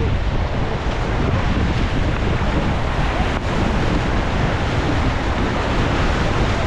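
Rushing river water and wind buffeting an action camera's microphone on a raft: a steady, loud noise, heaviest in the low end.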